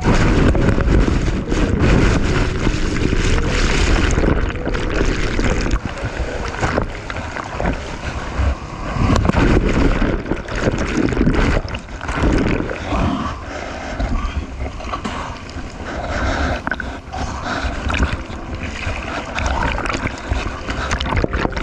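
Sea water splashing and waves washing around a kayak, with wind buffeting the microphone; the wind rumble is heaviest for the first four seconds or so, then eases into choppier splashing.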